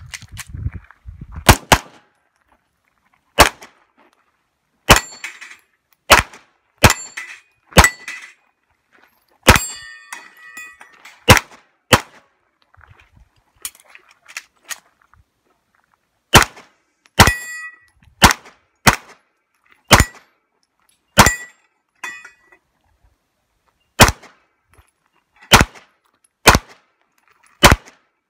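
Pistol shots fired one at a time, about twenty in all, in quick pairs and singles with pauses of a few seconds between strings. Several are followed by the ringing clang of steel plate targets being hit.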